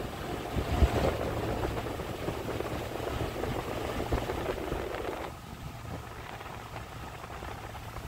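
Car driving on a paved road: steady engine and tyre rumble with wind buffeting the microphone. The rushing noise drops a little about five seconds in.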